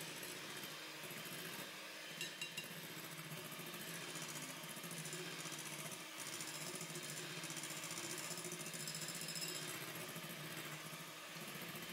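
Electric hand mixer running steadily, its twin beaters whipping egg whites and sugar into meringue, with two light taps about two seconds in.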